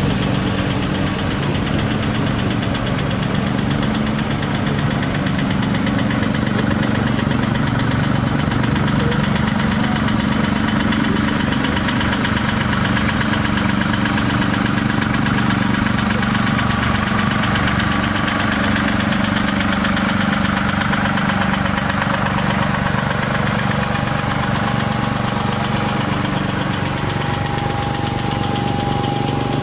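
Tractor engine running at low, steady speed as the tractor drives slowly past.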